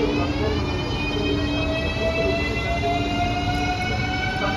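Ėlektrichka ES2G Lastochka electric train pulling away: its traction motors give a whine of several tones that slowly rises in pitch as the train gathers speed, over a steady rumble of the moving train.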